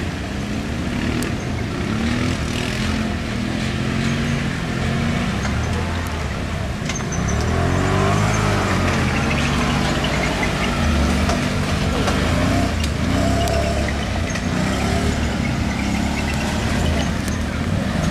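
Quad bike (ATV) engine revving hard, its pitch rising and falling again and again as the rider accelerates and eases off. It gets louder about a third of the way through.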